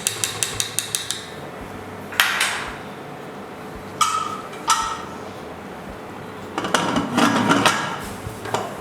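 A metal ladle stirring rice and water in a pressure cooker pot, clinking quickly against the pot several times a second, followed by scattered metal knocks and clatter, two of them ringing briefly.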